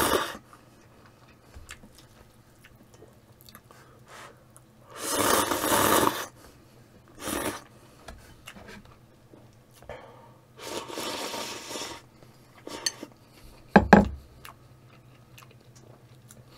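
A person slurping instant ramen noodles in noisy draws about a second long, the two biggest about five and eleven seconds in, with small clicks of chopsticks between. A single sharp knock sounds about fourteen seconds in.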